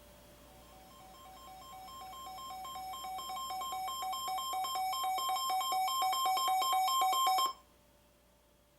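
Weather alert radio's alarm going off for an incoming warning: a fast warble of two alternating beeping tones that grows steadily louder for several seconds, then cuts off abruptly.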